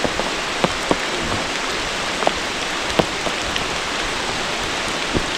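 Steady hiss of rain falling on a creek, with a few sharp drops or splashes close to the microphone.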